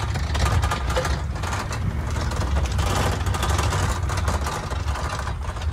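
Flatbed truck running as it drives along, a steady low engine rumble with road noise.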